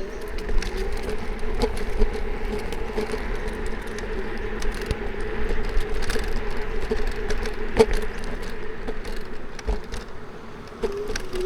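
Electric scooter's motor whining at a steady pitch while riding, over a low rumble, with scattered rattles and clicks.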